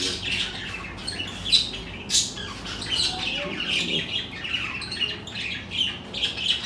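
Small birds chirping, many short high calls overlapping without a break.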